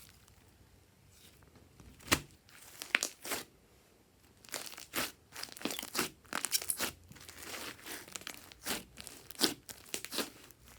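Slime being squeezed and worked by hand, giving irregular crackling, crunchy pops and squelches that come thickest around the middle.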